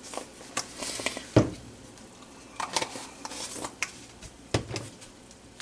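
Kitchen handling sounds: scattered clinks and knocks of utensils and seasoning containers against a cooking pot, with one louder knock about a second and a half in.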